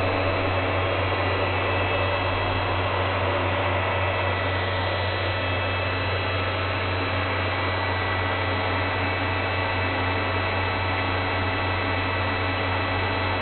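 Steady hiss with a low electrical hum underneath and a few faint steady high tones; no speech or music.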